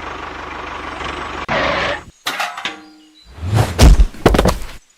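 A small engine running steadily with an even low pulse. After about a second and a half it gives way to abrupt cuts, a short falling tone, and a few loud low thuds near the end.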